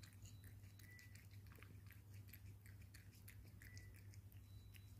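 A cat chewing crunchy pillow-shaped chicken treats: faint, irregular crunches and clicks over a low steady hum.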